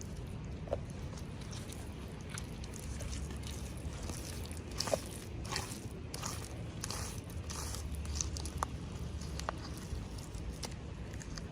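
Small toy packaging being handled and opened: scattered crinkles, crunches and light plastic clicks, busiest in the middle, over a steady low hum.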